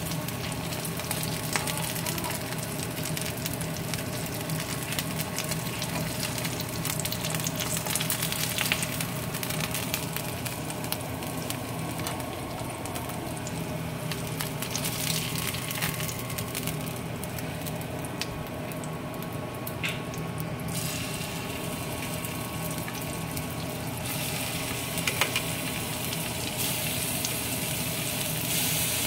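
Oil sizzling in a nonstick frying pan under frying eggs and then raw shrimp, with scattered small crackles and pops; the sizzle turns brighter over the last few seconds.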